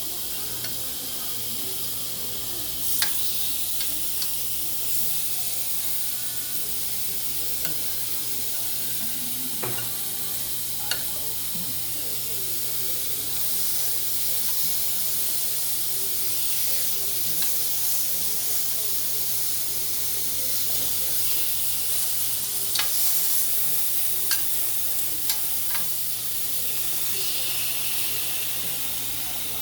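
Chicken thighs sizzling steadily on an indoor electric grill, with a few sharp clicks scattered through.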